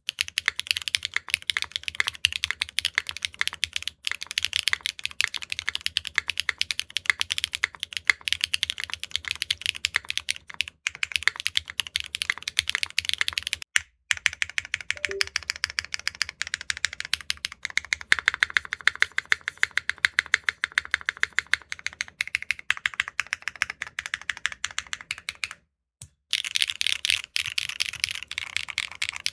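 Mechanical keyboard with HMX PEI Bumblebee linear switches (PEI top housing, PEI-core nylon bottom) in a Neo65 Core Plus, typed on quickly and continuously. The keystrokes are clacky and rapid, with two brief pauses, one about halfway through and one near the end.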